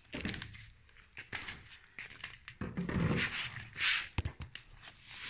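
Phone handling noise as the camera is picked up and moved: scattered knocks and taps with rustling, loudest just before four seconds in.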